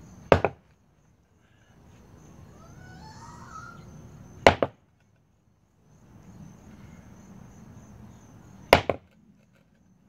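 An 8-pound sledgehammer dropped three times, about four seconds apart, onto a small concrete slab reinforced with basalt fiber chop in a drop test to break it. Each drop is a sharp knock on the concrete followed at once by a second, smaller one.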